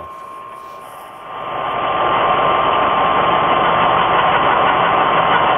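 Bridgeport milling machine running with an end mill cutting metal, the rotary table being cranked to feed the cut. Quiet at first, it swells about a second and a half in to a loud, steady cutting noise over a steady high whine.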